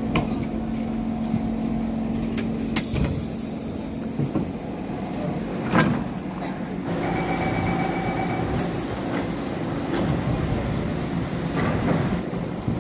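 Siemens C651 metro train standing at an elevated station: a steady hum from the train for the first few seconds, then two loud sudden hisses about three and nine seconds in, with a few knocks between them.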